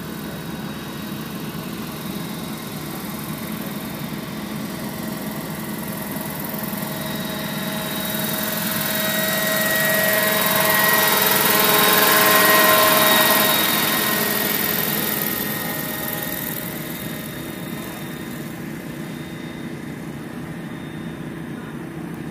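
Scale radio-controlled model helicopter flying past. Its steady whine grows louder to a peak about halfway through, then fades away.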